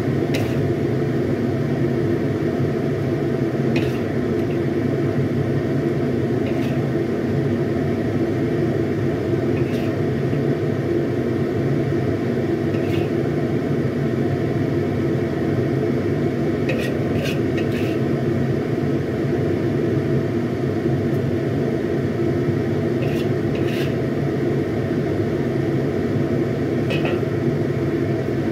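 A steady mechanical hum, with a light clink every few seconds as a serving spoon strikes a wok and bowl while cooked chicken is dished up.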